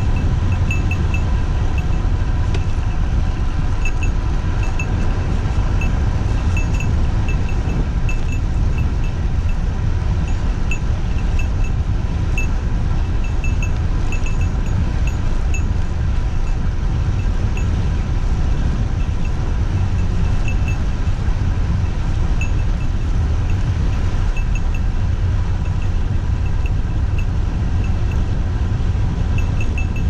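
Steady low rumble of wind on the microphone and tyre noise from a road bike coasting downhill on smooth asphalt. A light, high-pitched ticking repeats irregularly over it, a few times a second.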